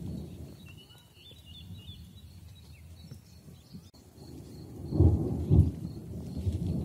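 Thunder rumbling: a low rumble dies away over the first second, then a louder one swells with two strong peaks about five seconds in. Faint bird chirps sound in the lull between.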